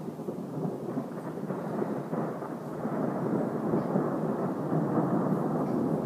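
Thunder rolling as a continuous low rumble that grows louder about halfway through.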